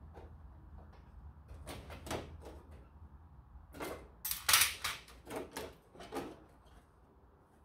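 Clicks and knocks of a circuit board being worked loose and slid out of a photocopier's sheet-metal chassis, with scattered taps and a louder clatter about four and a half seconds in.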